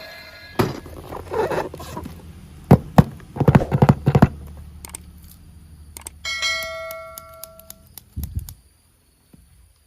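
Knocks and clattering of hard objects being handled, with several sharp knocks close together. About six seconds in comes a single bell-like ding that rings out for about a second and a half.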